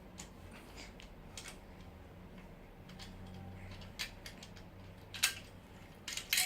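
Light scattered clicks and clacks from parts of a folding laptop table being handled during assembly. There is a sharper clack about five seconds in and a louder rattle of clicks near the end.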